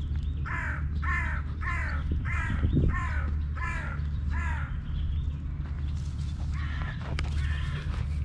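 A crow cawing seven times in a quick run, about two caws a second, each caw falling in pitch, over a steady low rumble.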